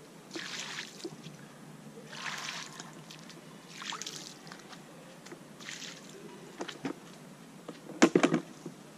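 Muddy puddle water sloshing and splashing as a plastic bucket is scooped through it and emptied, in four separate swishes about every one and a half to two seconds. About eight seconds in, a quick cluster of sharp knocks, the loudest sounds, as the bucket is set down on the asphalt.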